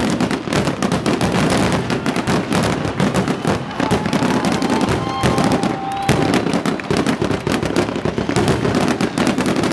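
Fireworks display: a dense, unbroken stream of rapid crackles and pops from ground fountains and bursting aerial shells. A thin whistling tone sounds about halfway through.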